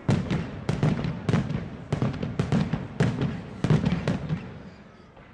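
Fireworks display: a rapid run of shell bursts, about three sharp bangs a second with echoing rumble, thinning out and fading to a faint crackle about four seconds in.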